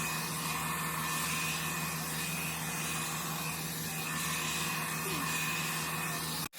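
Hot-air brush hair dryer running steadily, its small motor and fan blowing with a low hum, cutting off abruptly near the end.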